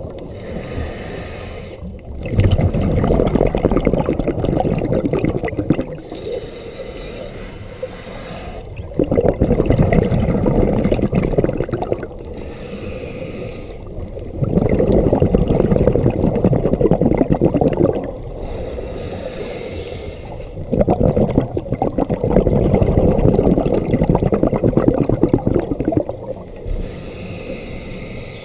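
A scuba diver breathing through a regulator underwater: a short hissing inhale, then a longer, louder rush of exhaled bubbles, repeating in a slow cycle of about six seconds, about four and a half breaths in all.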